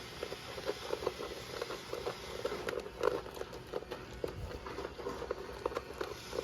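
A large dog eating, with quick, irregular crunches and clicks as it chomps its food.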